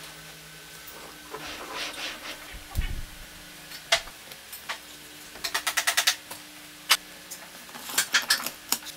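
Hands handling a wooden router guide jig with steel slide rods: scattered knocks and taps of wood and metal, a low thump about three seconds in, a quick run of clicks around six seconds, and more clicks near the end.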